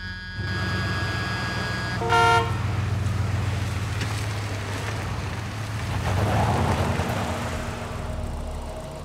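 Ford Excursion SUV engine running, with a short horn toot about two seconds in; the SUV then drives past, louder for a moment around six to seven seconds in.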